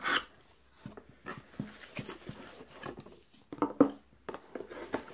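Cardboard mug box being opened by hand: the top flaps pulled loose and rubbing, with a short sharp rustle at the start, scattered small clicks, and two louder knocks about three and a half seconds in.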